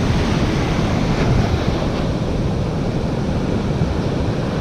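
Waves crashing on the beach in a steady wash of surf, with wind buffeting the microphone.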